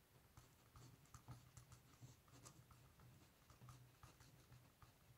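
Faint scratching of a ballpoint pen writing on paper: an irregular run of short strokes and taps, over a faint steady low hum.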